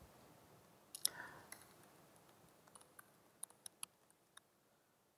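Faint, irregular clicks of laptop keyboard keys as a command is typed, about a dozen keystrokes spread over a few seconds, otherwise near silence.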